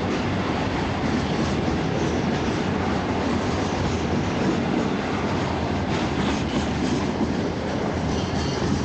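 Coal train's wagons rolling past on the track: a steady rumble and rattle of steel wheels on rail, with a faint high wheel squeal near the end.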